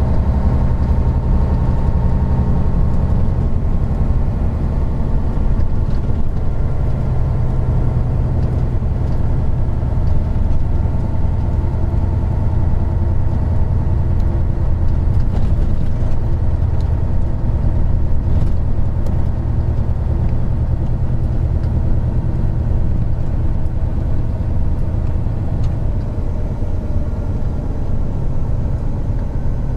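Isuzu Gala III coach's 12PE1 V12 diesel engine running steadily as the bus drives, a continuous low engine drone whose note shifts slightly a few seconds in.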